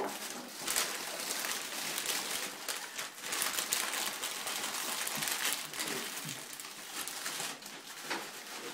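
Stiff clear plastic packaging on a toy box crinkling and crackling steadily as it is pulled and ripped off by hand.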